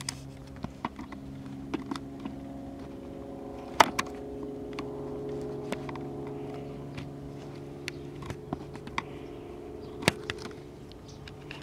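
Small sharp clicks and taps of tools working on a transistor radio's circuit board during a capacitor replacement, two of them louder, about 4 s and 10 s in. A steady low hum runs under them.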